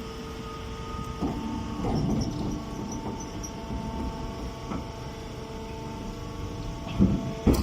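Hay and straw baling machine running with a steady hum and low rumble, with two sharp knocks near the end.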